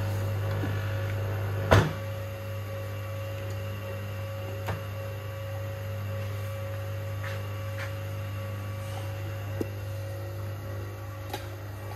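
Steady electrical hum from a homemade 12 V to 220 V inverter rig and the appliances it is running. A sharp knock comes about two seconds in, followed by a few fainter clicks.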